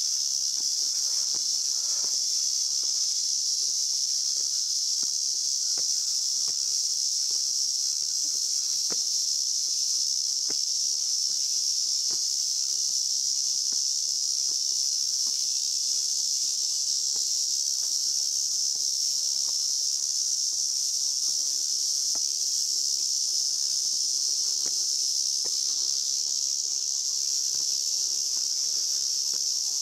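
A steady, high-pitched chorus of insects in a summer forest, an unbroken shrill drone. Faint scattered footsteps on stone steps sound underneath.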